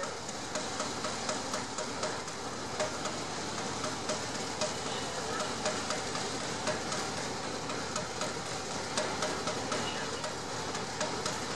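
An all-weather lifeboat's diesel engines idling on its slipway before launch: a steady running noise with a regular beat about three times a second.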